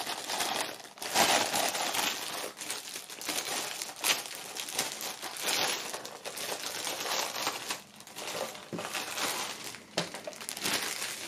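Clear plastic packaging bag crinkling and rustling as hands work a latex mask out of it, with uneven surges and a few sharp crackles.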